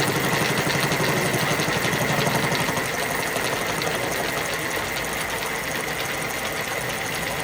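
A machine running with a fast, even clatter and a steady high whine. A heavier low hum drops away about three seconds in.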